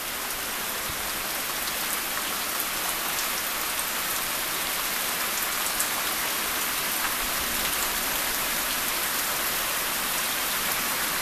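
Steady rush of floodwater running like white-water rapids through a nine-foot-deep roadside ditch. It grows a little louder over the first few seconds, then holds even.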